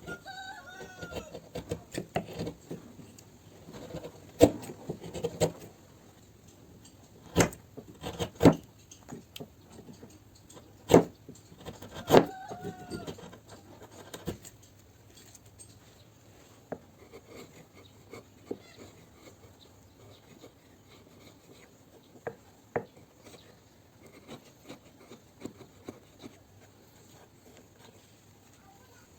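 Pieces of wood knocking together in irregular, sharp knocks, loudest in the first half, with two short squeaks.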